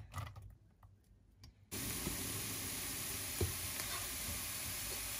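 Chopped onion sizzling steadily as it sautés in olive oil in a nonstick pan, starting suddenly about a second and a half in after a few faint clicks. A couple of light knocks from the wooden spatula come near the middle.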